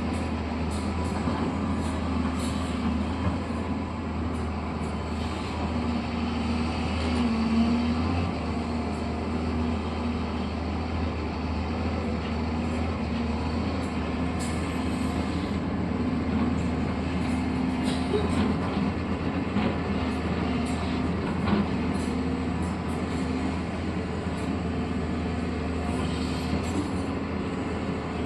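Steady engine drone of construction machinery running, a constant low hum with scattered light clicks and clanks.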